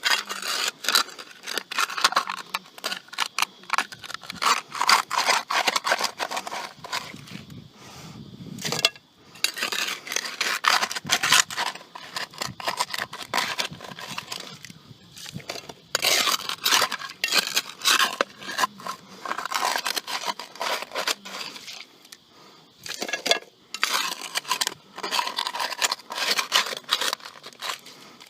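Gravel and stones being scraped up and scooped out of bedrock cracks, in repeated bursts of gritty scraping with stones clicking and clinking.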